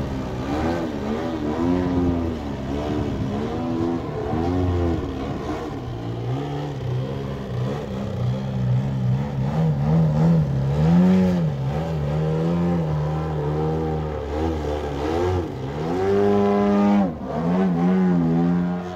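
Desert Aircraft DA-120 twin-cylinder two-stroke gasoline engine on a large radio-controlled aerobatic plane, running through canister mufflers, its pitch rising and falling again and again with throttle changes and passes during aerobatics. Near the end a held high note drops off abruptly, then the engine picks up again.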